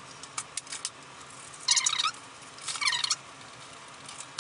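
Hobby knife cutting a channel in pink extruded polystyrene foam: a few light clicks, then two high squeaks about a second apart as the blade drags through the foam.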